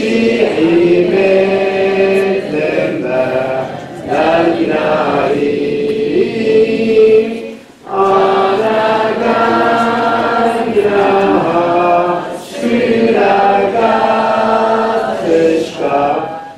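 A choir singing a slow song in long held phrases, with short breaks between phrases about 4, 8 and 12.5 seconds in.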